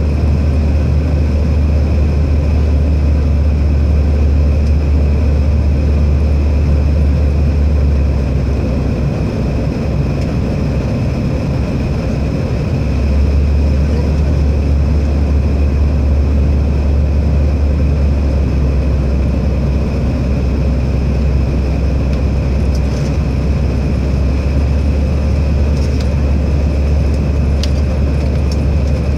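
Steady airliner cabin noise in flight: a deep drone with a fainter steady higher hum. The deep drone eases for a few seconds about a third of the way through, then comes back.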